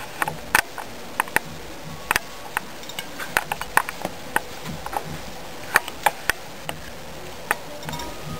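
Irregular sharp clicks and taps, a dozen or more at uneven intervals, from a pet pouched rodent moving about its enclosure on hard flooring and bedding.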